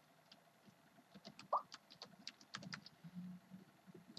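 Faint typing on a computer keyboard, a quick run of light key clicks, with one short rising chirp about one and a half seconds in.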